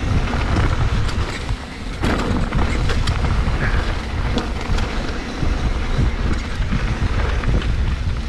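Downhill mountain bike rolling fast over gravel and dirt: tyres crunching on loose stones and the bike rattling over the rough surface, with a constant low rumble of wind and ground noise.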